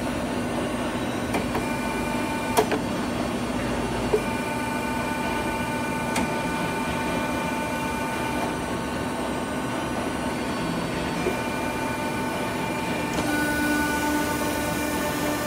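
Hydraulic pipe-bending machine running: a steady pump hum with a whining tone over it and a couple of sharp metallic clicks, about two and a half and four seconds in. About thirteen seconds in the sound shifts, with more hiss and a new tone.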